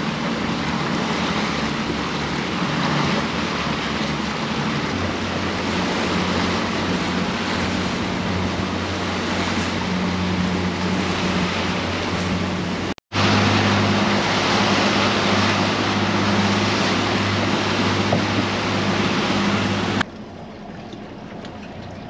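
Motorboat running under way: a steady engine drone under loud wind and water rush. It drops out for a moment about 13 seconds in and resumes, then falls to a much quieter hum near the end.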